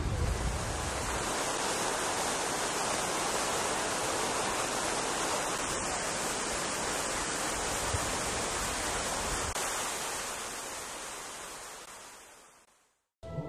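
Steady rush of fountain water spraying and splashing, fading out near the end.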